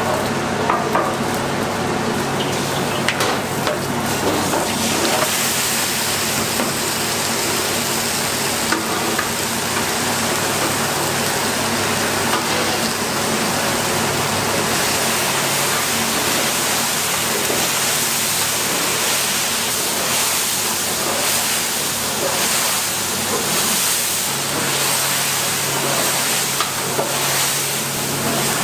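Kimchi stir-frying in hot oil in a large industrial wok: a steady sizzle with a wooden paddle stirring and scraping. The sizzle turns hissier about five seconds in.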